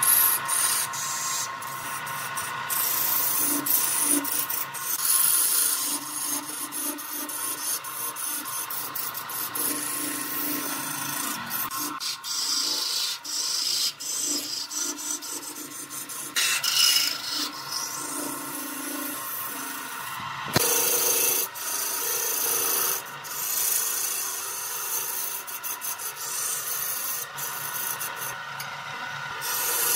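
Wood lathe turning a wooden spindle while a hand-held turning tool cuts into it, throwing off shavings: a continuous scraping rasp of the blade on the spinning wood that swells and eases as the cut changes, over the steady hum of the lathe's electric motor.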